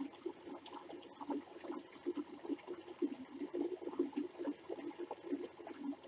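Small creek trickling over rocks, a steady run of little gurgles.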